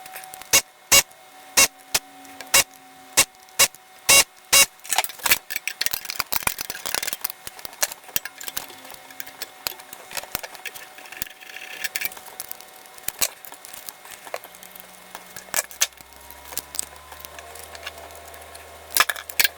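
Irregular sharp clicks and knocks, coming thick and fast over the first several seconds and then more sparsely, with a faint low hum starting about three quarters of the way through.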